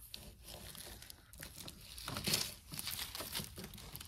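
Hands rummaging through a tangled pile of costume jewelry: irregular rustling with light clicks of chains and beads, loudest a little past the middle.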